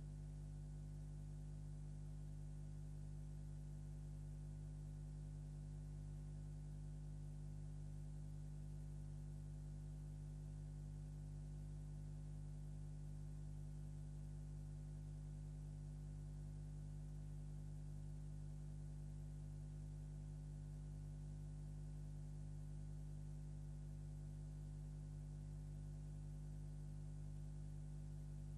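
Steady electrical mains hum that never changes, the only sound on an otherwise empty soundtrack.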